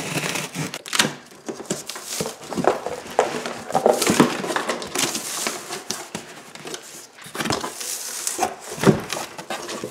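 A cardboard shipping box being unpacked by hand: the plastic packing strap pulled off and the cardboard flaps and inserts handled, an irregular run of scrapes, rustles and knocks.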